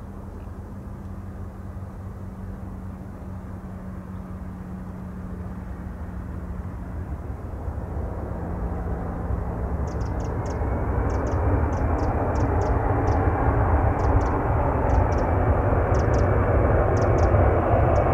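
Aircraft approaching, its engine noise building steadily louder through the second half, with a faint high whine rising in over it.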